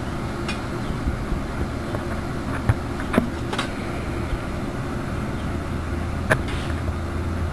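Metal stand poles knocking and clinking against the steel cross as they are slid into its sockets: a few short, sharp clinks spread out over several seconds. Under them runs a steady low rumble like distant traffic.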